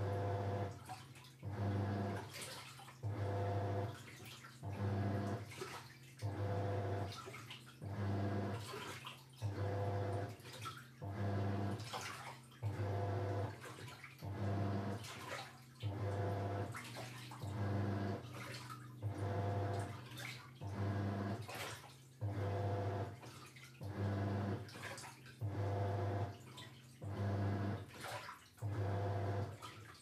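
Toshiba Star Crystal Drum 5K washing machine in its wash cycle: the motor hums in short strokes about every second and a half, churning the wash water, which sloshes and splashes between strokes.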